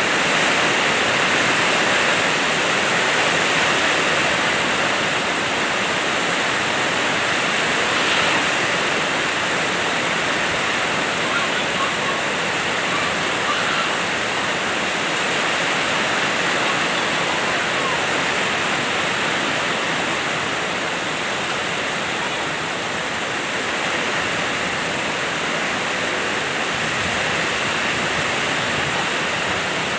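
Heavy rain falling steadily, a dense, even hiss of water.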